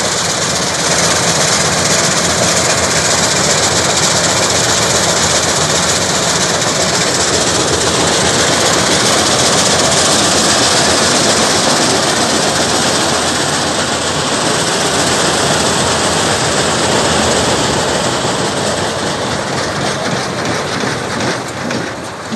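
Vikas 325 tractor-mounted combine harvester running in place: a loud, steady wash of machine noise from its harvesting works and the tractor engine, easing off slightly near the end.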